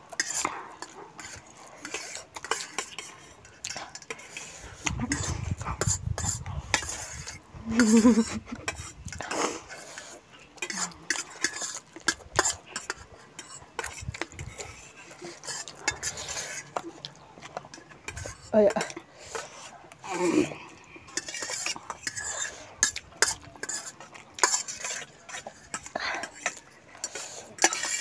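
A fork and a spoon scraping and clinking on stainless steel plates as two people eat noodles, in a steady run of short clicks and scrapes.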